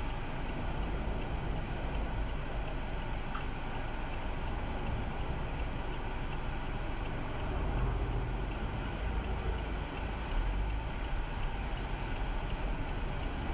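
Steady car engine and traffic noise heard from inside a car through a dash-cam microphone, mostly a low rumble, swelling slightly a few times.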